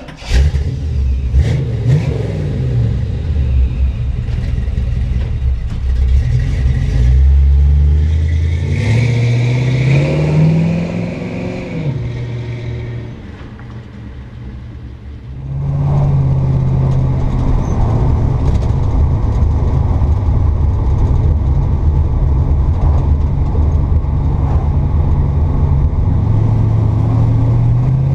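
Cammed 1956 Chevrolet pickup's engine, exhaust running through Flowmaster mufflers, revving and pulling away with its pitch climbing, then fading as the truck drives off. About halfway through it comes back loud and steady as heard from inside the cab, with pitch rising again near the end as it accelerates.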